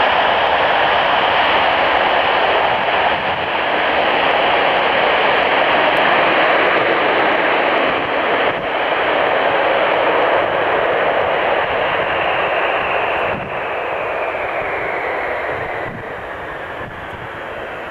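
Boeing 707 without a hushkit, its four JT3D turbofan engines running loud on the landing roll. The steady jet noise fades and grows duller over the last few seconds as the aircraft moves away down the runway.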